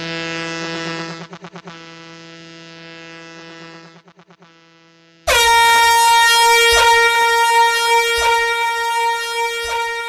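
DJ air-horn sound effects. A low horn tone stutters and steps down in loudness until it dies away. About five seconds in, a loud, higher-pitched air horn blast starts abruptly and holds steady.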